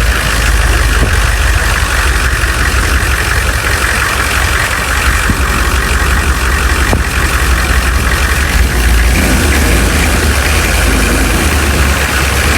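Humvee's diesel V8 engine running steadily: a deep, constant drone with a steady noise band above it.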